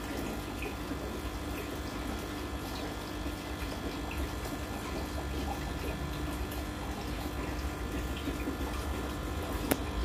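Steady water circulation and bubbling from the aquarium's water pumps, with a low hum throughout. A sharp click sounds near the end.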